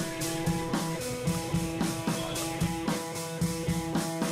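Background music: guitar over a drum kit keeping a steady beat.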